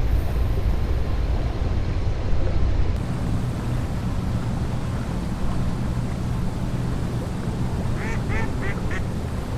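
A steady low rumble of outdoor ambience. Near the end a bird calls four times in quick succession.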